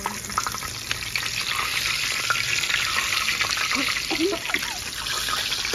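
Breaded fish fillets deep-frying in hot oil in a disco (plow-disc pan): a steady sizzle full of small crackling pops.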